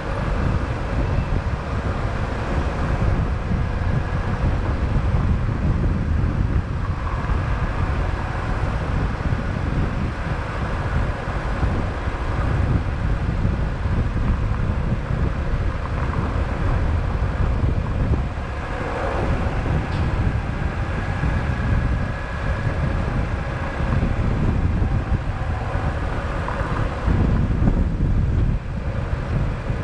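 Car driving through city traffic, recorded by a camera mounted on it: steady road and engine rumble, with wind buffeting the microphone.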